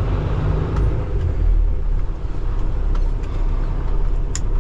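Diesel engine of a Peterbilt semi-truck idling with a steady low rumble, with a sharp click near the end.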